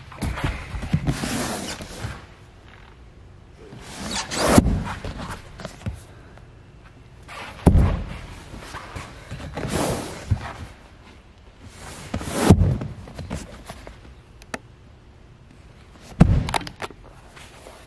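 Hinged cushioned seat lids on pontoon-boat lounge couches being lifted and dropped shut to show the storage beneath. A series of dull thuds comes every couple of seconds, with rustle from the handling.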